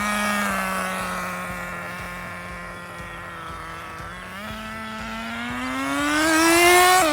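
Small nitro engine of a Redcat Racing Lightning STR RC car running at high revs, its pitch easing down slightly, then climbing steadily over about three seconds as the car accelerates, loudest just before the end.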